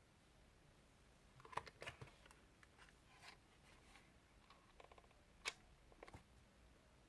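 Faint, scattered clicks and light taps, a few at a time, the sharpest about one and a half and five and a half seconds in.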